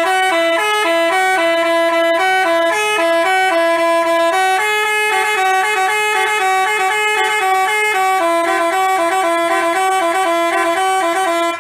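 Telolet basuri musical bus horn playing a melody: a quick, unbroken run of steady horn notes stepping up and down in pitch.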